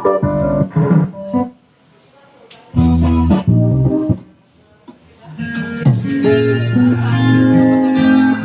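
Guitar and bass music played loud through a Storm Tsunami D15 700-watt sound system for a sound test. It cuts out briefly twice, then comes back with long, deep bass notes held under the guitar.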